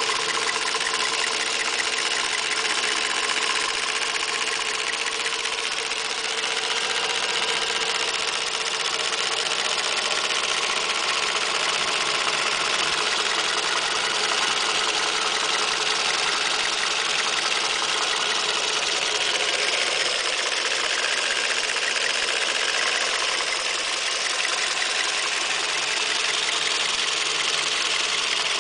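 Warmed-up Toyota 2NZ-FE 1.3-litre VVT-i inline-four idling steadily, heard close in the engine bay, with a fast light ticking in its sound. A Toyota mechanic judged this noise normal for the engine.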